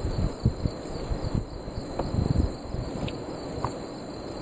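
Crickets chirping in a steady, pulsing high chorus, under irregular low knocks and rustling from a trammel net being hauled in by hand.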